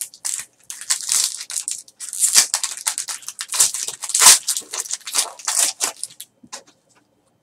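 Foil wrapper of a Bowman Chrome baseball card pack being torn open and crinkled by hand. The crackling is thickest from about two to six seconds in, then dies away.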